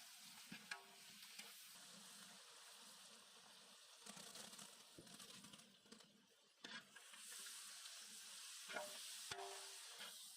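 Food sizzling in hot oil while being stirred, with a few sharp clicks of a utensil against the pan. The sizzle grows louder about two-thirds of the way through.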